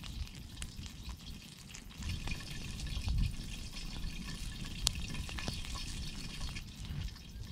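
Wood campfire crackling, with scattered sharp pops and a steady hiss over a low rumble.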